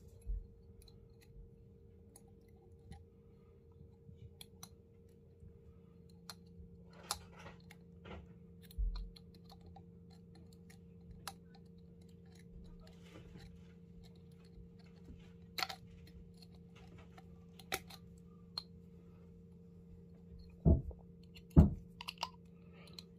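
Scattered small clicks and taps of thin wire being bent and fitted around a small glass jar by hand. Near the end come two louder knocks about a second apart, over a faint steady hum.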